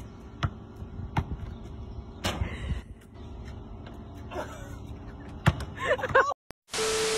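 Basketball bouncing on asphalt, a few separate sharp bounces about a second apart, then a short shout around six seconds in. Near the end comes a short burst of hiss with a steady tone at the cut to the next clip.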